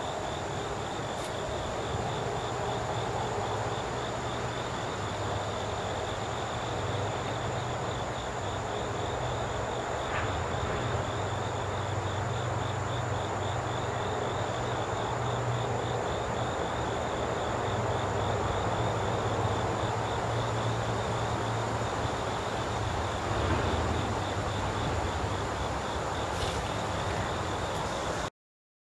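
Outdoor ambience: a steady low engine-like hum under a rapid, evenly pulsing high trill and a steady high whine, typical of late-summer insects calling. The sound cuts off abruptly near the end.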